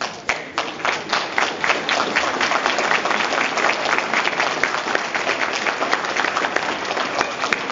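Audience applauding: scattered claps thicken into steady, dense applause over the first second or two.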